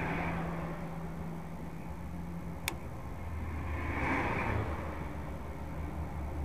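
Road traffic heard through a dashcam in a stopped car: a steady low engine hum, with passing lorries and cars swelling and fading twice. A single sharp click comes a little before the middle.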